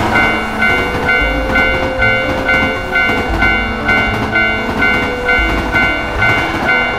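Japanese railroad crossing warning bell ringing its steady two-tone 'kan-kan' alternation, over the noisy rumble and clatter of a passing train.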